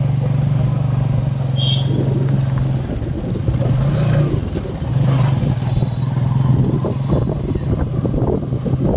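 Engine of a moving road vehicle running steadily at cruising speed, with road and rumble noise. The engine note drops away briefly about three seconds in and again near four and a half seconds, then settles back to its steady hum.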